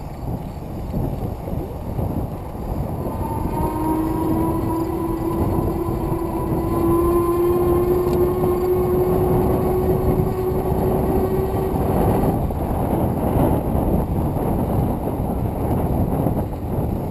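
Wind on the microphone and tyres rolling on a gravel trail while cycling. From about three seconds in to about twelve seconds, a steady tone sounds through it, slowly rising a little in pitch.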